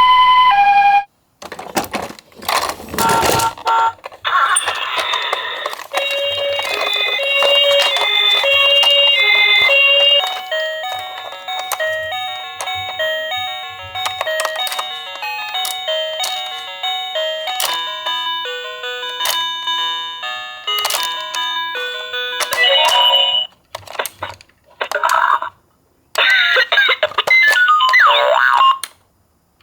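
Electronic beeping melody of plain chime-like tones, stepping through a tune for about twenty seconds. It follows the last alternating high-low notes of a Japanese-style two-tone ambulance siren and a few clicks and knocks, and near the end comes a burst of mixed electronic sounds with falling glides.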